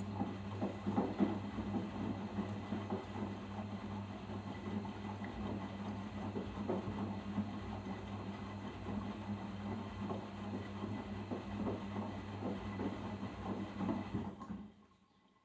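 Arçelik 5083 washing machine drum turning during the final rinse: a steady motor hum with water and the wet load sloshing and splashing irregularly, the drum stopping about a second before the end.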